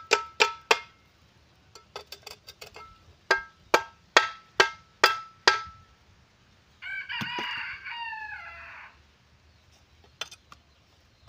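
Repeated sharp metallic knocks with a short ringing note, in runs of about two strikes a second, as a loose part is knocked back into place without a hammer. About seven seconds in, a rooster crows once for about two seconds.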